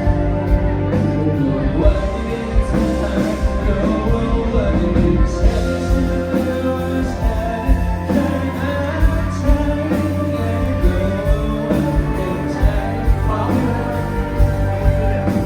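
Amplified live band music with a vocalist singing over a steady beat.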